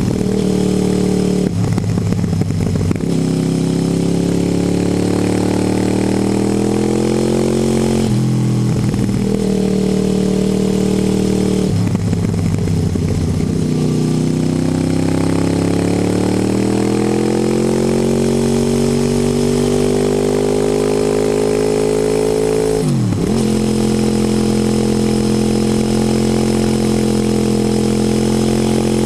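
Motorcycle engine heard from on board while riding. Its pitch climbs steadily under acceleration and drops sharply several times as it changes gear, with a deep dip near the end before it settles to a steady drone.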